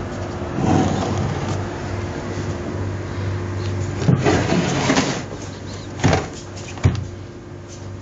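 The wooden case of an Elektronika 7-06M digital clock being handled and tilted on a desk: rubbing and scraping about a second in and again around four to five seconds in, then two sharp knocks near the end, over a steady low hum.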